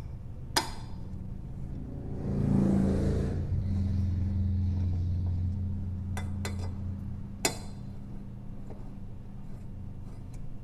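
Light metallic clicks of a 4 mm Allen wrench working the cap-head screws on a pneumatic rivet nut setter: one about half a second in, a few around six seconds and one more shortly after. Under them a low steady rumble swells about two seconds in and slowly fades.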